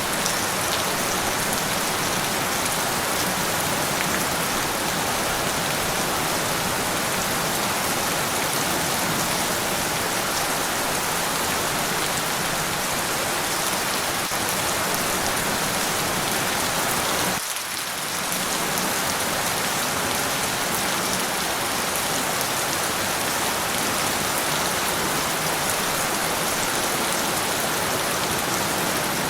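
Steady heavy rainfall, a dense even hiss of drops on surfaces, with a brief dip in level about two-thirds of the way through where the recording seems to loop.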